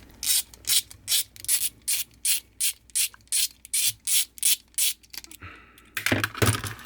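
Quick, evenly repeated scraping strokes of metal work on a carburetor, about three a second, stopping about five seconds in, followed by a louder scrape or rustle around six seconds.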